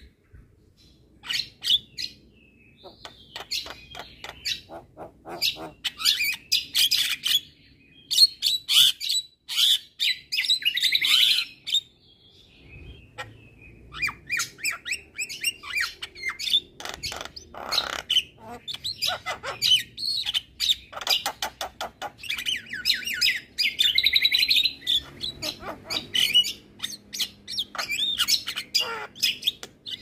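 Javan myna singing a long, varied chattering song of quick sharp notes and harsh rasping phrases, with a short pause a little before halfway.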